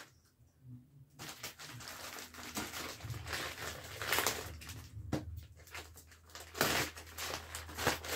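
Plastic courier mailer bag rustling and crinkling in the hands as it is opened, in irregular crackly bursts. It starts after a quiet first second and is loudest near the end.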